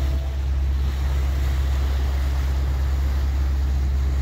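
A boat's engine running with a steady low hum under the rush of the bow wave through the water.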